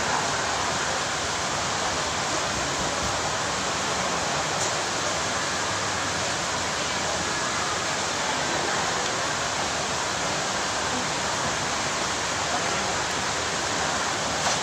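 Steady, even rushing background noise of a large open mall atrium, unchanging throughout.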